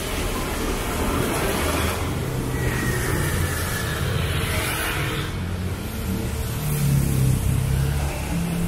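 City road traffic: a steady low engine rumble, with tyre noise swelling as vehicles pass every few seconds. The engine sound is loudest about seven seconds in.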